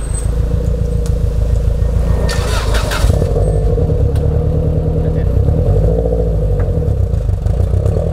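Subaru Impreza WRX STi (GC8)'s flat-four boxer engine idling through a silenced exhaust, a steady low rumble.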